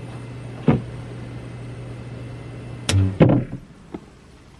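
A steady low hum with a knock about a second in, then two loud metallic clunks around three seconds in, after which the hum stops: a furnace shutting down as its power is switched.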